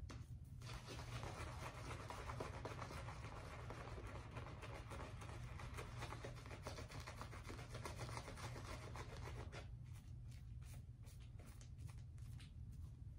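Shaving brush scrubbing lather over a stubbly face: a soft, wet rubbing that runs on steadily for about nine seconds, then breaks into separate short strokes near the end.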